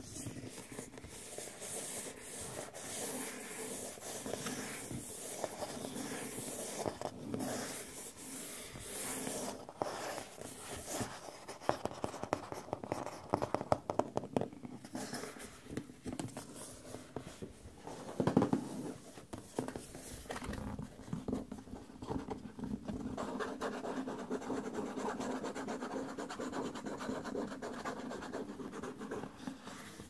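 Fingers scratching, rubbing and tapping on a cardboard box, with a flurry of quick taps in the middle and one louder knock about eighteen seconds in.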